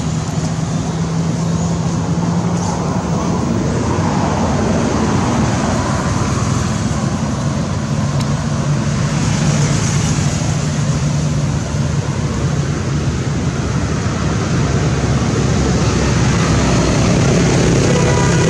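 Steady motor-vehicle traffic noise with a continuous low engine hum, growing a little louder near the end.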